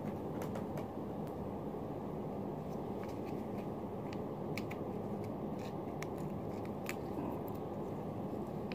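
Scattered small crinkles and ticks of a plastic Ciao Churu cat-treat pouch being handled and torn open, over a steady low background hum.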